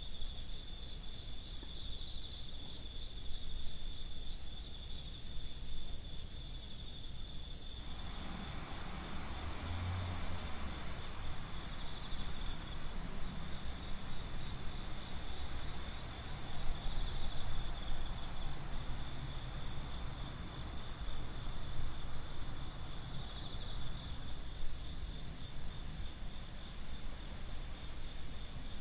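Autumn night chorus of crickets, bell crickets (suzumushi) among them, singing steadily at a high pitch, several insects at slightly different pitches. One higher-pitched singer fades about eight seconds in, as a faint low background noise comes up.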